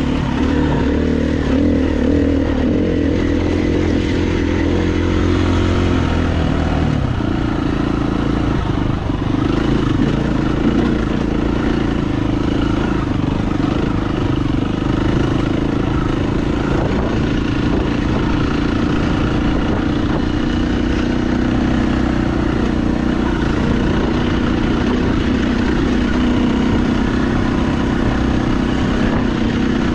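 KTM dirt bike engine running steadily as the bike is ridden along a dirt trail. The engine note changes about seven seconds in.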